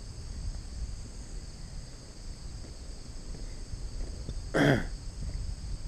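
Steady chirring chorus of crickets, with a low rumble beneath. A single brief, loud burst sounds about three-quarters of the way through.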